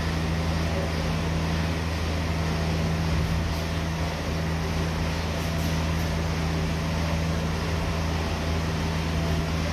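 Steady low machine hum, with two droning low tones over a faint even whir and no change in pitch or level.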